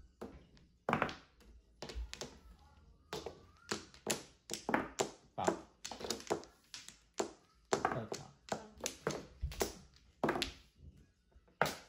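Mahjong tiles clacking on the table as players draw and discard: a rapid, irregular series of sharp clicks and knocks.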